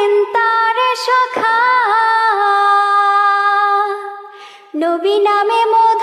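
A young woman's solo voice singing a Bengali Islamic devotional song (naat) with no instruments heard. She holds one long note through the middle, takes a breath, then the melody resumes.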